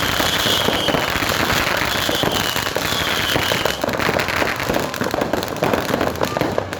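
A dense, continuous barrage of fireworks and firecrackers, sharp cracks and pops overlapping without a break. A high whistle rises over the crackling three times in the first four seconds.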